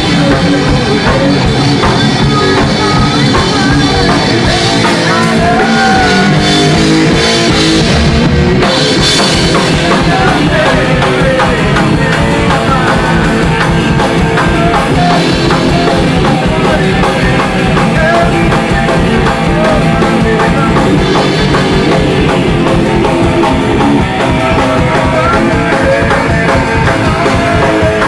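Rock band playing loud, with a drum kit and electric bass driving a fast, steady rock song.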